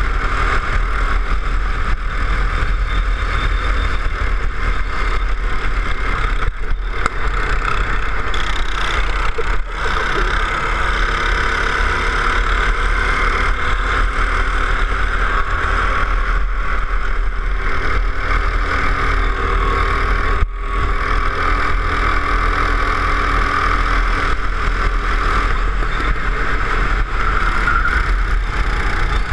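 Go-kart engine running at speed on track, heard from the kart itself: a steady drone whose pitch rises and falls a little with the throttle, with a few brief drops in level.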